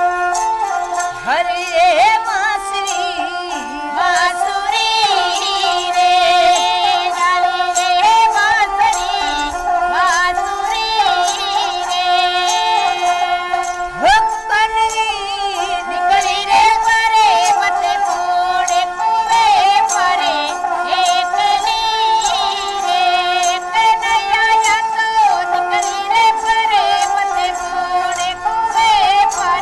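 Music: a melody with sliding, wavering notes over a steady held drone.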